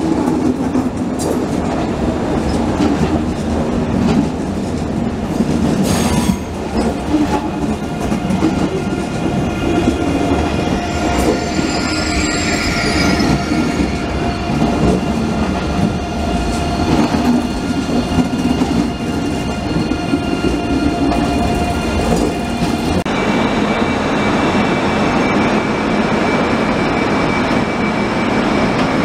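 ICE 3 high-speed train (class 403) rolling slowly past, its wheels rumbling and clicking over the rails with a steady whine at several pitches. About twelve seconds in, a brief wavering high squeal from the wheels. Near the end the sound changes abruptly to a steadier hum.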